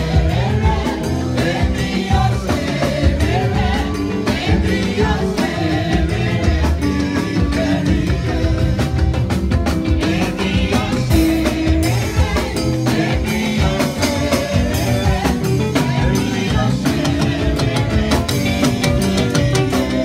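Live church band music: singers on microphones over a drum kit and electric bass guitar, playing a steady beat.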